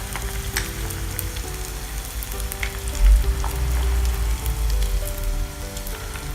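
Minced tilapia fish cakes deep-frying in hot oil, a steady sizzle with scattered crackles and pops. A louder low rumble comes in about three seconds in and lasts a couple of seconds.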